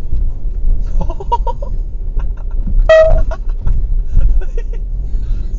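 Steady low road and engine rumble heard from inside a moving vehicle. About a second in there is a quick run of short high chirps, and about three seconds in a single short car-horn honk is the loudest sound.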